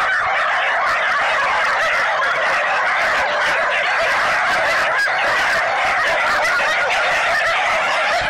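A large pack of shelter dogs barking and yelping all at once in a dense, overlapping chorus that keeps going without a break.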